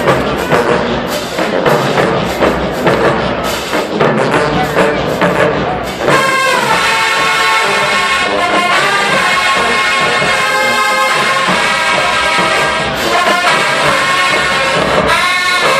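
HBCU marching band playing loud. For about the first six seconds it is mostly drums under the band, then the brass section comes in with full held chords that swell and fall away several times.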